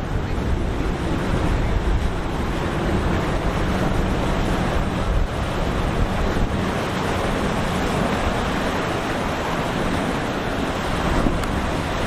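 Waves washing and wind buffeting the microphone: a steady rushing noise with small swells in level.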